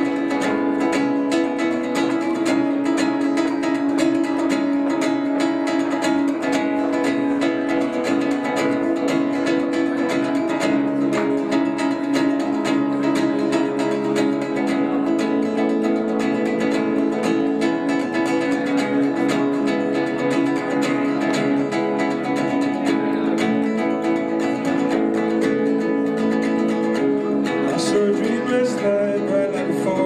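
Nylon-string acoustic guitar picked and strummed in a continuous instrumental passage of a song, with rapid plucked notes.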